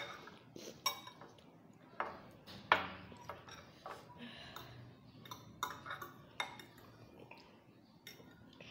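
Metal forks and spoons clinking and scraping against glass bowls in irregular light taps, as noodles are stirred and eaten; one clink about three seconds in is the loudest.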